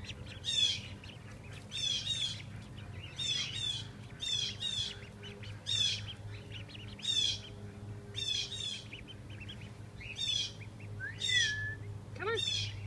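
A bird calling over and over: a short, high call about once a second, sometimes given twice in quick succession. Near the end comes a different, lower call that falls in pitch. A steady low hum runs underneath.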